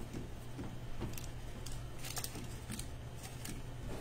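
Soft irregular clicks and rustles of a small rolling pin being worked over pastry dough in a parchment-lined aluminium cake pan, over a low steady hum.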